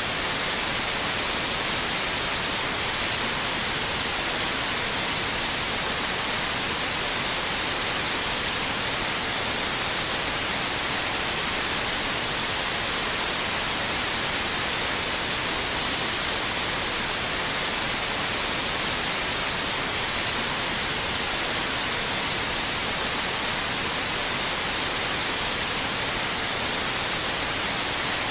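Steady white noise: an even, unbroken hiss, brightest in the high treble.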